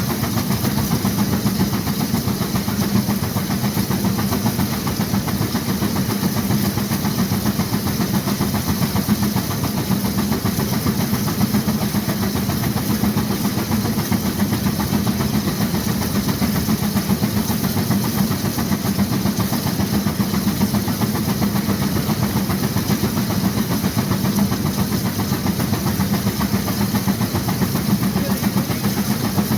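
1916 Case 40 HP steam traction engine working hard against a Baker fan, its exhaust beating fast and steadily.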